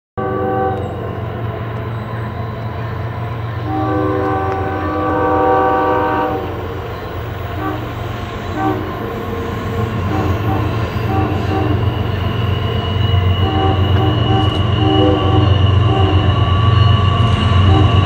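Air horn of an approaching CSX freight train's lead GE diesel locomotive sounding a multi-tone chord. A long blast is held for several seconds, then comes a run of short toots in a horn show, over the low rumble of the locomotives growing louder as they near.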